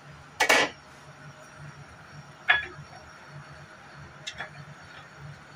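Cookware being handled in a kitchen: a short clatter about half a second in, a sharper knock a couple of seconds later and a few faint ticks, over a steady low hum.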